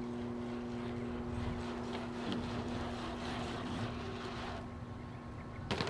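A steady mechanical hum, two held tones over a low rumble, with a brief sharp noise about five and a half seconds in.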